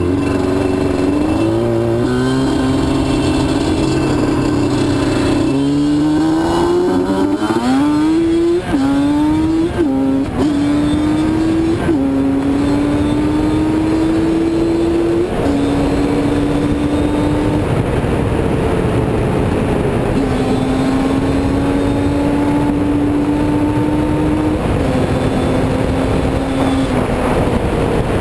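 Yamaha Banshee's twin-cylinder two-stroke engine, running on a single-carburettor Trinity 2-1 setup being tuned, revving up through several quick gear changes, each climb cut by a sudden drop in pitch. It then holds a steady cruising note that steps down a few times as the throttle is eased.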